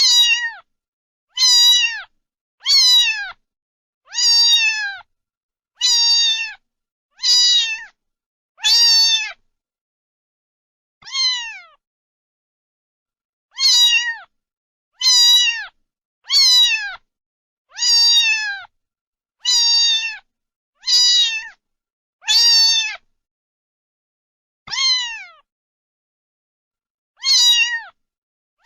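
A cat meowing over and over, about one meow every second and a half, each meow falling in pitch at the end, with a few longer pauses between runs.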